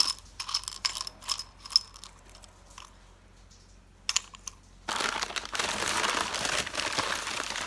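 Tumbled polished stones clicking against each other and their dish as a finger stirs them, a run of sharp clinks in the first two seconds. From about five seconds in comes a steady rustle and crinkle of plastic packing wrap being handled.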